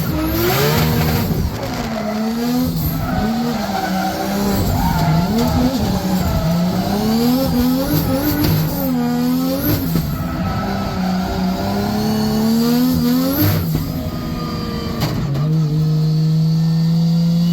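RB26 twin-turbo straight-six in a BMW E92 M3 drift car, revving up and down over and over as it drifts, with tyres skidding. Near the end the engine holds a steady note.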